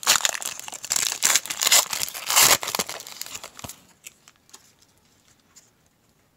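Foil wrapper of a 2018 Panini Select football card pack being torn open and crinkled by hand, loud for about three and a half seconds, then a few faint ticks.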